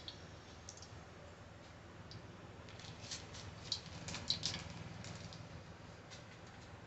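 Spice seeds crackling and popping in hot oil in a kadhai: faint, scattered ticks, thickest about three to four and a half seconds in.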